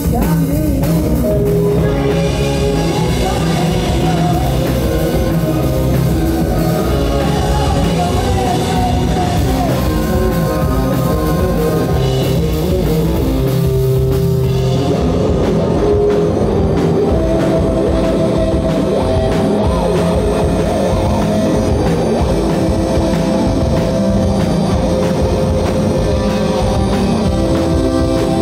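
Live rock band playing loud: drums, electric guitar and keyboard, with a woman singing at times.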